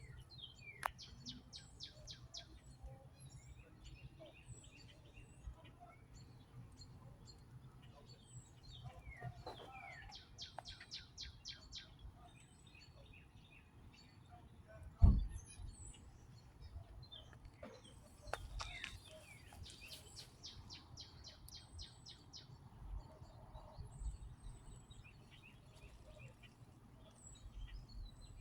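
Small songbirds singing: scattered chirps and three high trills of quickly repeated notes, several seconds apart. About halfway through there is one loud low thump, over a faint low rumble.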